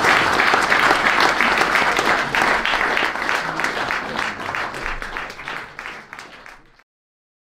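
Audience applauding, the clapping thinning and fading out over the last couple of seconds before cutting off.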